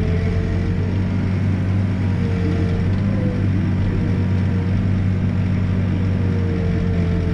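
Backhoe's diesel engine running steadily under digging, with a thin whine that wavers slightly above the engine note.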